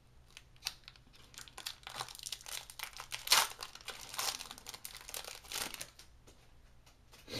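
Plastic wrapper of an Innistrad Magic: The Gathering booster pack crinkling and tearing as it is opened by hand, in quick crackles that are loudest a little over three seconds in and die away near the end.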